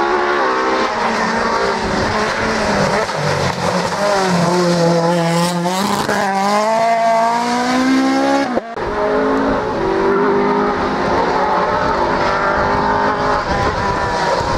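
Rally car engines at full throttle. One engine climbs steadily in pitch as the car accelerates, then is cut off abruptly a little past halfway through, and another rally car's engine takes over.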